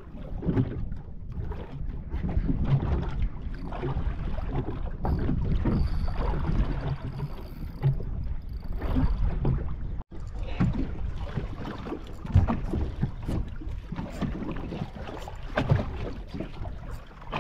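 Wind buffeting the microphone over water slapping against the hull of a small boat, with scattered knocks. The sound drops out for an instant about ten seconds in.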